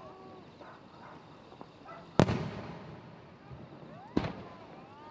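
Aerial firework shells bursting: two sharp booms about two seconds apart, the first, about two seconds in, the louder, each echoing briefly.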